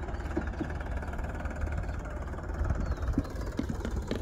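A small engine running steadily with a low, rapid chug, with a few short clicks near the end.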